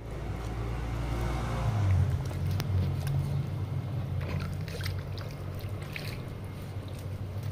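Small water jets from a hose-fed splash pad spraying and splashing onto wet paving, over a steady low rumble, with a few light clicks.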